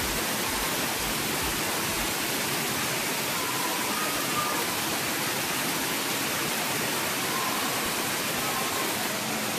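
Water pouring in a continuous curtain from the rim of a mushroom-shaped splash-pool fountain and splashing into the shallow water below: a steady rushing splash.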